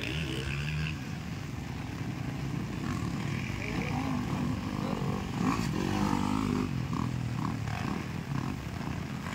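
Motocross dirt bikes racing past on the track, their engines revving up and down as the riders work the throttle, loudest about halfway through.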